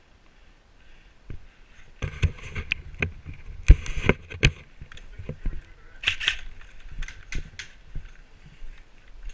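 Irregular sharp clicks, knocks and rattles with rustling, the noise of the player's airsoft gear and rifle being handled and moved, starting about two seconds in and dying away near the end.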